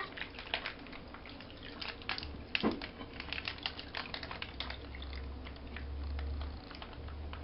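Runny green bath slime poured from a plastic cup into a tub, trickling and dripping with many small irregular drips and splats. A low hum comes in about two seconds in.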